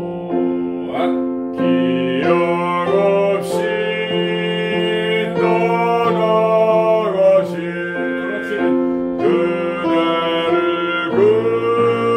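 Man singing a slow phrase of a Korean art song in classical bel canto style, with vibrato on the held notes, over sustained instrumental accompaniment.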